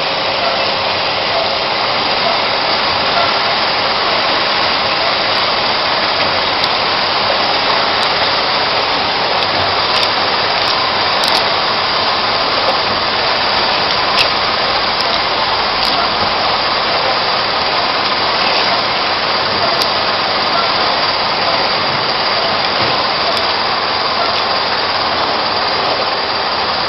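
Ice cream cone making machine running: a steady mechanical whir from its motor and chain-and-sprocket drive, with a few faint ticks.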